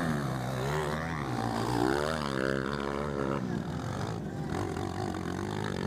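230 cc motocross bike engines revving hard and easing off over and over, the pitch swelling up and falling back about once a second, then running lower and steadier in the second half.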